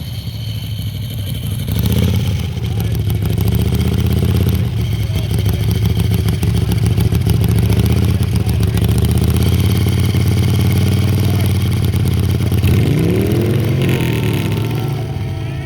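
Harley-Davidson V-twin motorcycle engine running loud and steady, with a rev that rises and falls near the end.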